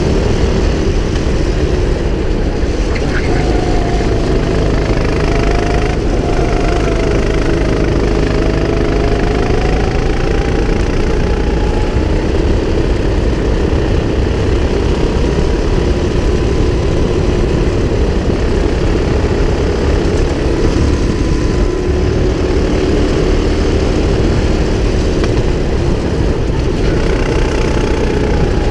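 Go-kart engine running at racing speed, its pitch climbing through a long stretch of acceleration, dipping as the kart slows, then rising again near the end. Heavy low wind rumble on the onboard camera runs under it.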